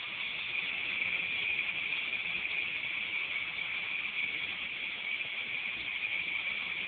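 Small remote-control toy helicopter's electric motor and rotors whirring steadily in flight, a high, even whir.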